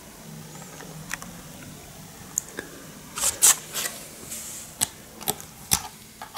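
Irregular sharp clicks and light knocks from handling a digital multimeter's test leads and plugs at its input jacks, the loudest a little past halfway.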